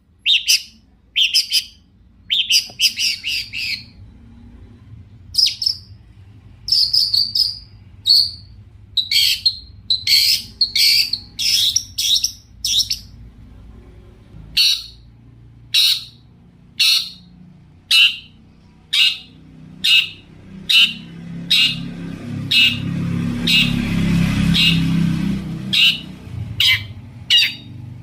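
Long-tailed shrike (cendet) calling: a long run of short, sharp notes, in quick clusters at first and later about one a second. A low rumbling noise swells and fades underneath about two-thirds of the way through.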